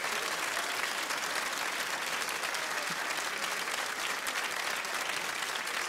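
Studio audience applauding, a dense steady clapping that holds at one level.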